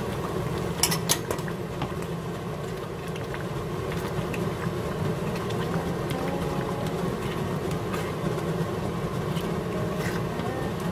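Jajang black-bean sauce simmering and bubbling in a frying pan, stirred with a spatula as starch thickens it, with a few faint clicks. A steady low hum runs underneath.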